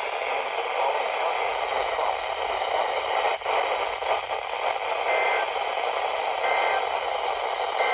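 Hiss and static of a weak radio broadcast. About five seconds in, three short two-tone EAS data bursts sound about a second and a half apart; they are the end-of-message code that closes an emergency alert.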